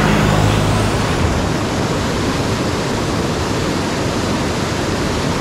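Rushing whitewater of a fast creek: a steady, loud hiss of churning water.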